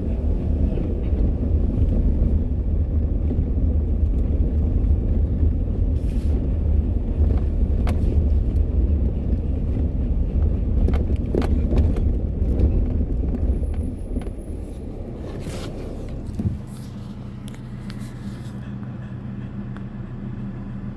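Car driving on a dirt road, heard from inside the cabin: a loud, steady low rumble of tyres and road with scattered sharp clicks of stones. About fourteen seconds in the rumble drops as the car slows, a single knock follows a couple of seconds later, and then a steady engine hum remains as it rolls slowly.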